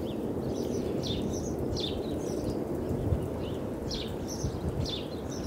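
Small birds chirping: repeated short, high chirps over a steady low rumble of outdoor background noise.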